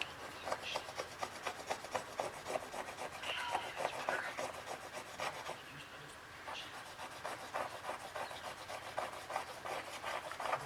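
Quick, repeated scraping and rubbing strokes on the tablet's frame, the sound of old screen adhesive being scraped off. The strokes ease off for a moment about six seconds in.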